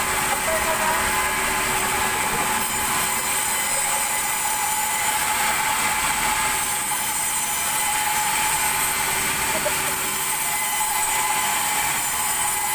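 Large sawmill band saw running steadily, a constant mechanical whine over a rushing noise.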